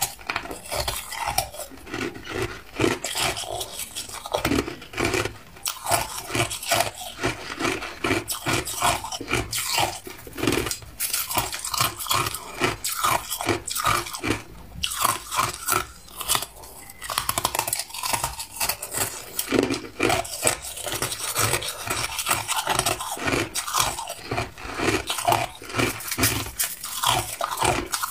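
Crushed ice being chewed close to the microphone: rapid, dense crunching and crackling as the hard ice fractures between the teeth, with a few short pauses.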